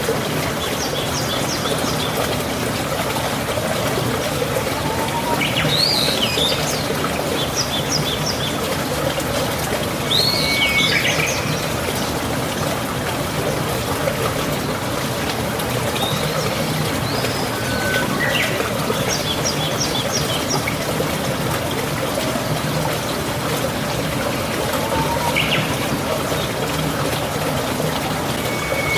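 Steady trickling, flowing water with birds calling now and then over it: short rising and falling calls and quick runs of high chirps every few seconds.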